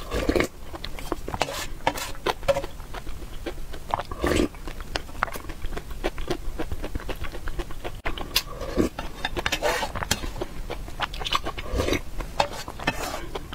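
Close-up eating sounds: several slurps of soup from a spoon, with wet chewing and small mouth clicks in between.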